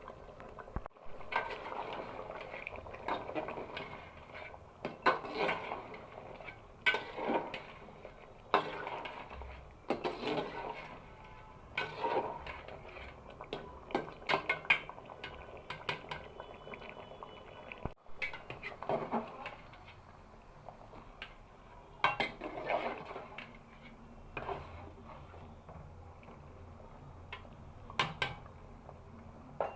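A spoon scraping and clinking against a cooking pot in irregular strokes, over a steady bubbling of simmering curry.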